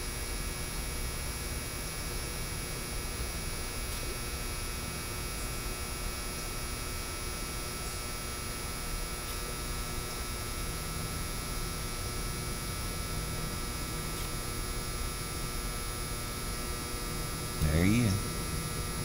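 A steady electrical hum with several fixed tones over a faint hiss. Near the end comes a short vocal sound from a man, the loudest moment.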